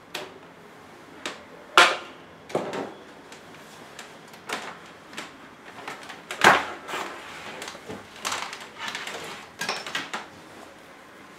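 Handling noises: irregular knocks and clicks with clothing rustle as a camcorder's cable is unplugged and gathered up on a tabletop. The two loudest knocks come a little under two seconds in and a little past the middle.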